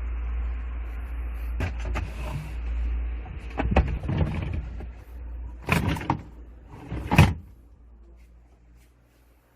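Samsung Zipel refrigerator being handled: a series of knocks and thumps, the loudest two a second or so apart past the middle, typical of its doors and drawers being shut. A steady low hum runs beneath them and fades away near the end.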